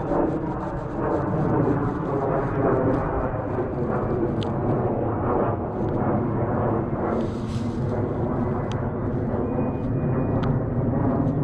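Steady wind rumble buffeting a GoPro action camera's microphone outdoors, with faint scattered clicks.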